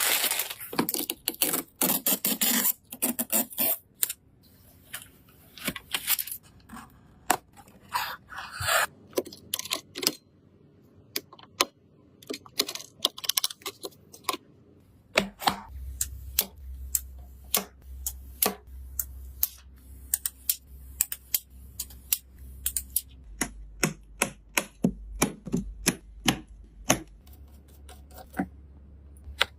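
Irregular sharp clicks and taps of computer parts being handled, clipped and screwed together in a PC build, some in quick runs, some spaced out. A low steady hum comes in about halfway.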